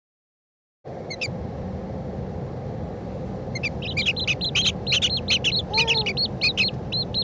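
Newly hatched chicks peeping: short, high-pitched cheeps that start a few seconds in and come several a second, over a steady low rumble.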